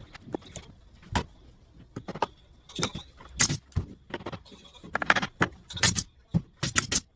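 A string of irregular knocks and clatters of wooden boards being handled and fitted together, coming thicker from about three seconds in.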